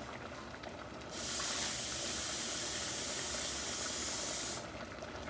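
A steady, even hiss that starts suddenly about a second in and stops just as suddenly about three and a half seconds later.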